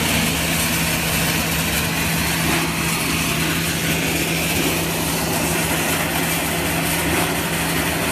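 Small corn sheller (maize thresher) running while shelling cobs: a steady mechanical hum with an even noisy rush over it.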